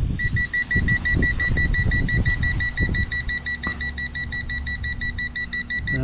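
TOPTES PT520B+ combustible gas leak detector sounding its alarm: rapid, evenly spaced beeps at one high pitch, starting just after the opening. The alarm signals that the sensor is picking up butane released from a lighter, with the reading climbing to about 15 %LEL.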